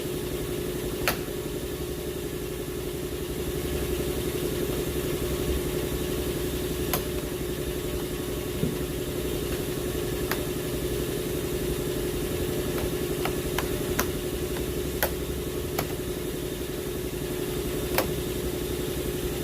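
Sharp clicks and taps, about ten spread irregularly, from a flathead screwdriver prying at a plastic door trim bezel, over a steady engine hum.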